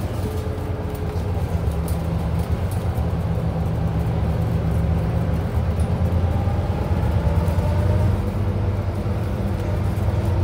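Inside a Scania Enviro 400 MMC double-decker bus on the move: the Scania diesel engine and drivetrain give a steady low drone with road noise, and a faint whine rises slightly about six seconds in.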